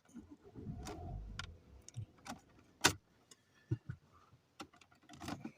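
Car keys jangling and clicking as they are handled, with a low rumble of handling for the first second and a half and a sharp click about three seconds in.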